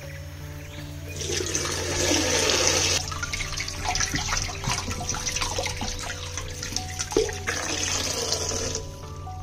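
Water running from a kitchen tap into a sink. It starts about a second in, is strongest for the first couple of seconds and stops shortly before the end.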